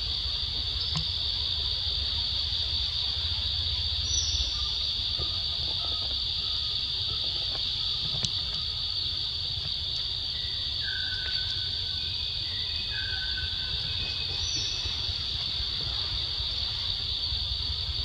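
Steady high-pitched insect chorus in forest, over a low rumble, with a few short, level whistled notes in the middle stretch and two brief higher falling notes.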